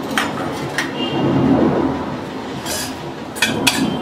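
A steel spoon clinking and scraping against a stainless-steel bowl while breadcrumbs, chopped onion and green chilli are mixed. Two sharp clinks come early and a quick cluster near the end, over a steady low rumble.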